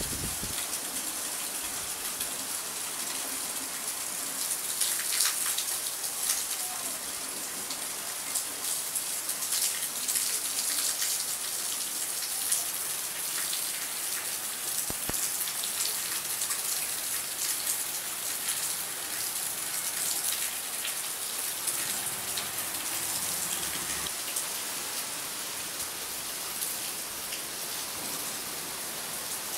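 Steady rain falling: an even hiss full of fine drop ticks, with brief louder spells of patter about five, ten and twelve seconds in.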